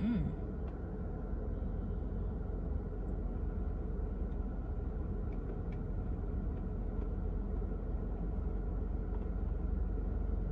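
Steady low rumble inside a parked car's cabin, with a few faint clicks now and then.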